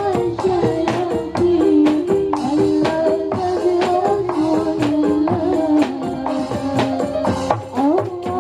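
Marawis ensemble music: frame drums and tambourine beating a quick, dense rhythm under a melody line that moves in held notes.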